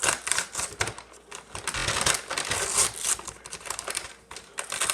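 Slime being squeezed and worked by hand, giving a quick, irregular run of wet crackling pops and clicks.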